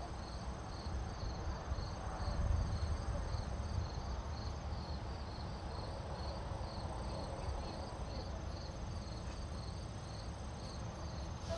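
Crickets chirping: a high chirp repeating evenly about twice a second over a steadier high trill, with a low rumble underneath that is loudest about two to three seconds in.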